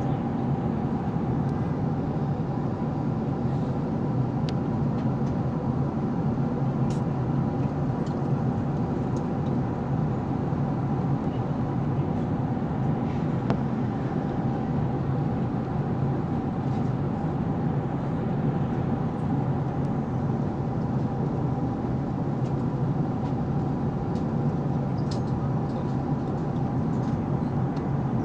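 Steady cabin noise of an Airbus A380 in cruise: the constant rush of airflow and the hum of the engines, with a few faint steady whines running through it.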